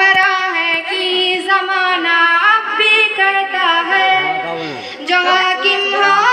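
A child's high voice singing a tarana with no instruments, the melody gliding between long held notes, with a brief break about five seconds in.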